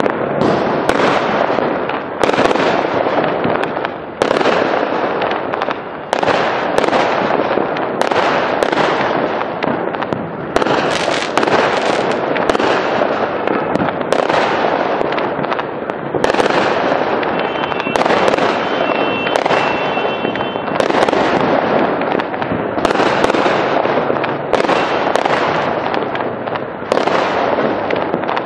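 Fireworks display: a rapid run of aerial shell bursts, one sharp bang about every second, each trailing off in crackle.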